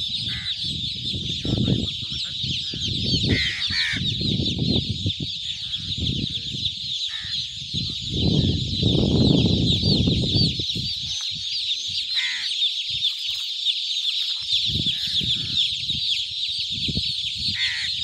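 Hundreds of newly hatched chicks cheeping all at once, a dense, unbroken chorus of high peeps, with bursts of low rumble on the microphone.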